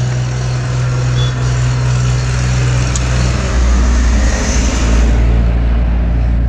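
Motor vehicle engine running with road noise, a steady low hum that drops to a lower pitch about halfway through.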